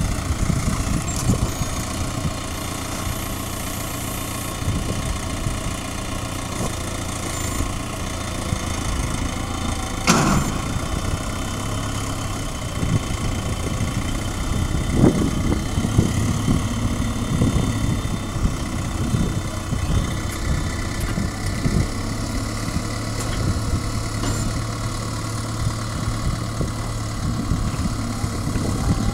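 Farm tractor's diesel engine running steadily while it pulls and drives a trailed bale wrapper, with a sharp click about ten seconds in and a knock about five seconds later.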